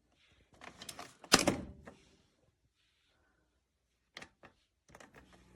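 Handling knocks and clicks: a rustle, one sharp knock about a second and a half in, then two quick clicks, followed by a faint steady hum near the end.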